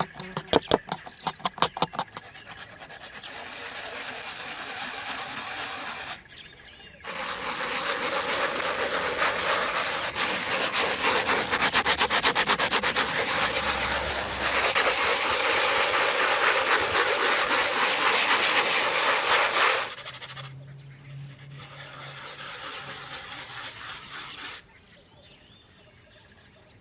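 Steady abrasive rubbing, like sanding or scraping, loudest through the middle stretch, easing off and stopping a few seconds before the end; it is preceded at the start by a quick run of clicks.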